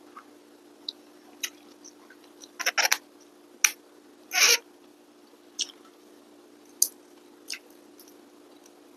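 Eating sounds from hand-eating a meal with raw vegetables: scattered short crisp clicks and crunches, about ten in all, with one longer crunch about four and a half seconds in. A steady low hum runs underneath.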